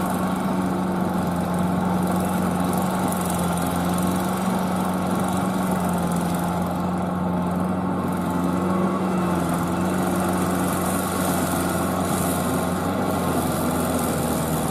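Kubota L4508VN tractor's diesel engine running steadily under load as it tills a flooded rice paddy.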